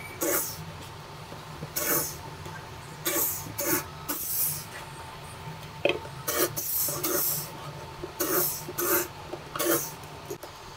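Cordless drill boring holes through laminated particleboard panels, in a series of short, loud bursts as the bit cuts in and is eased off.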